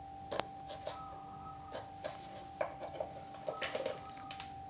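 Kitchen knife slicing long beans on a wooden cutting board: scattered light taps of the blade on the board, with a quick run of taps a little after halfway.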